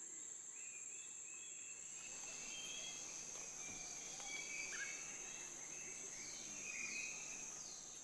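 Faint forest ambience: a steady high-pitched insect drone, with scattered short bird calls and a few quick falling whistles about six to seven seconds in.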